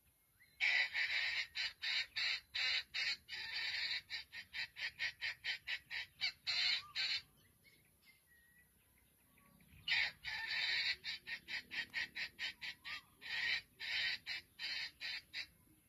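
A wild chicken (red junglefowl) giving harsh clucking calls in two long bouts, each a rapid run of short notes with a pause of a few seconds between them.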